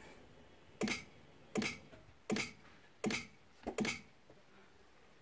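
Five sharp ticks, evenly spaced about three-quarters of a second apart, after the car's gas-fed engine has just stalled from fuel starvation.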